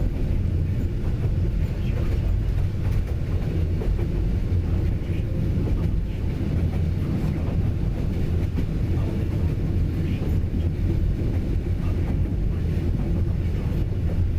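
Train running steadily along the rails: a constant low rumble with faint scattered clicks from the wheels.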